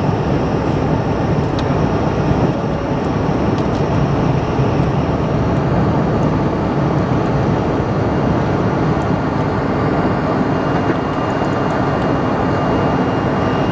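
Bombardier CRJ-700's two rear-mounted General Electric CF34 turbofans at takeoff thrust, heard inside the cabin as a loud, steady rush through the liftoff and initial climb. A faint high whine joins near the end.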